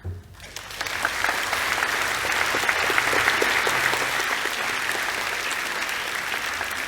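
Audience applauding after a spoken reading. The clapping builds over the first second, then holds steady and full.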